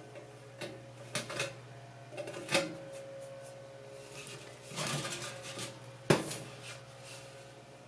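Sheet-metal stovepipe scraping and clinking as burrs on its cut edges are dressed off: scattered scrapes and knocks, a longer scrape about five seconds in, and a sharp click about six seconds in, the loudest.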